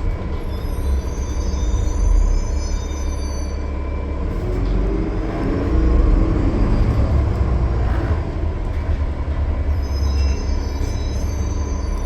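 Cummins ISL9 diesel engine of a 2020 Gillig Low Floor transit bus running at highway speed. There is a steady low drone with road noise, and thin high whistling tones come in near the start and again near the end.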